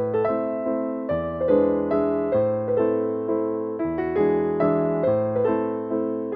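Background piano music: an even run of notes over a low note that changes about every second and a half.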